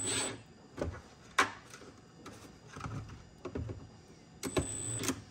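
Plastic heater duct and fittings being handled and secured under a UTV dash: scattered sharp clicks and knocks, with a small cluster near the end, over light rustling.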